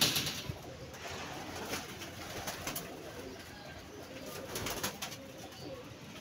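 Domestic pigeons cooing in a wire-mesh loft, with a brief loud flurry of wingbeats at the very start.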